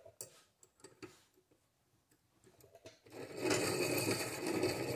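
A few faint handling clicks, then, about three seconds in, a piston ring filer's abrasive wheel starts grinding the end of the Kohler Magnum M18's exhaust valve stem in a steady rasp. The stem is being ground down a little at a time to open up a valve clearance that is far too tight.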